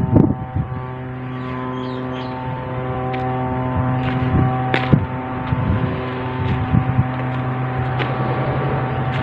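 A steady engine or machine drone running at constant speed, growing slightly louder about three seconds in, with scattered light clicks and knocks.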